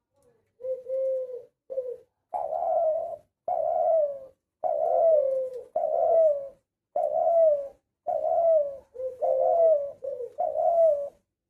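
Spotted dove cooing: a run of about a dozen low coos, each under a second long and most falling slightly in pitch, with short gaps between them.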